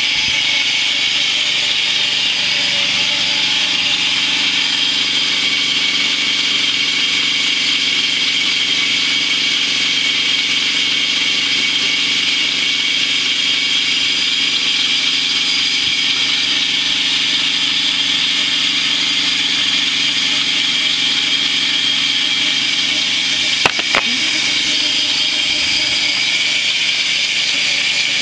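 Engine of a home-made lumber mill running steadily at a constant speed, with two sharp clicks about three-quarters of the way through.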